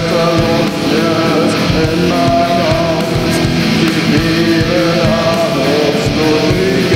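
Rock song with electric guitar over a steady beat, with a voice singing a melody.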